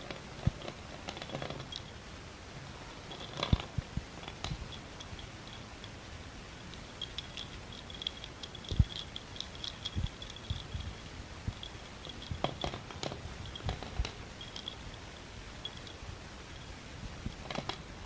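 Pieces of school chalk crunched and chewed at close range: scattered sharp cracks and crisp crunches at irregular intervals, the loudest about nine seconds in.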